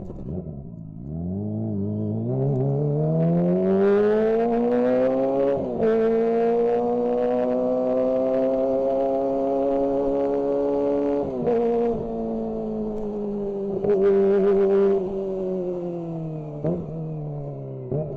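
Kawasaki ZX-25R's 249 cc inline-four engine heard onboard under way: the revs fall, then climb steadily for several seconds and break sharply at a gear change. They hold high and steady until a second quick break about two-thirds through, then ease gradually down.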